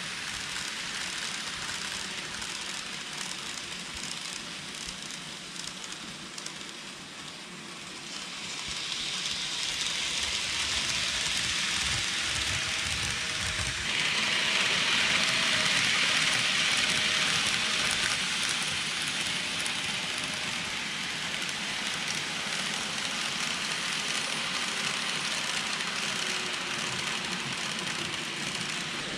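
KATO N-gauge 117 series model train running on the layout's track: a steady hiss of small metal wheels on rail and the motor. It grows louder about eight seconds in, jumps louder again around fourteen seconds, then eases a little.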